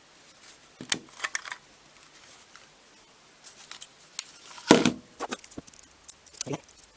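Batteries and the camera's plastic battery compartment being handled: scattered small clicks and light knocks, the loudest knock a little before five seconds in.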